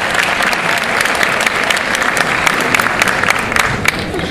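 Audience applauding, a dense mass of clapping that thins out near the end.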